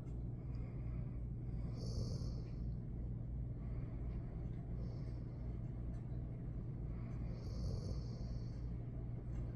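Black Mouth Cur dog snoring in its sleep, with slow, even breaths about every three seconds.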